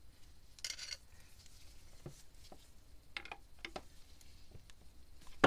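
Faint handling noises: gloved hands rustle and small tools and metal parts click around a stopped marine diesel engine. A brief rustle comes early, a few light clicks follow, and one sharper click comes near the end.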